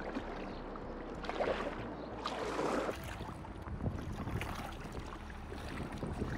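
Double-bladed kayak paddle dipping and splashing in floodwater as a kayak is paddled along, in irregular strokes, over a steady low wind rumble on the microphone.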